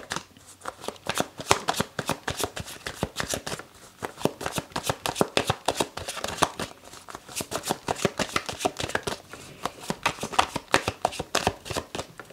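A deck of tarot cards being shuffled by hand, the cards sliding and clicking against each other in quick runs with short pauses between them.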